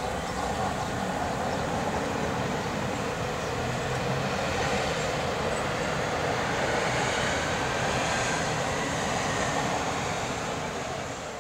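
Tram passing on street rails: a steady rumble and rattle with a faint high whine, fading away near the end.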